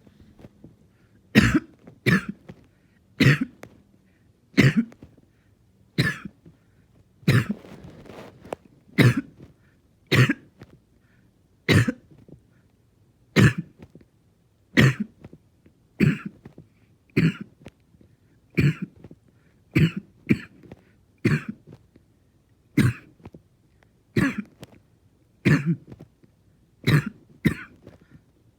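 A person's prolonged coughing fit: about twenty harsh coughs, one every second or so, without a break, some of them in close pairs.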